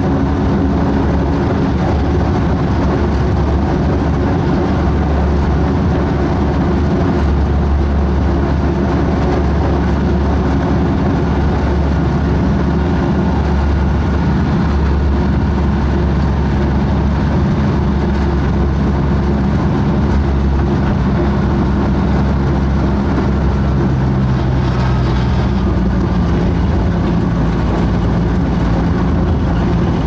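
Diesel engine of a narrow-gauge forest-railway locomotive running steadily, heard from inside its cab, with the engine note shifting a little about 24 seconds in.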